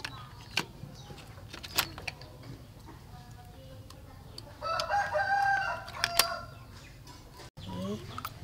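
A rooster crows once, a call of about a second and a half starting about four and a half seconds in. Around it, sharp clicks of snail shells knocking together and against a plastic basket as the meat is picked out with a bamboo skewer.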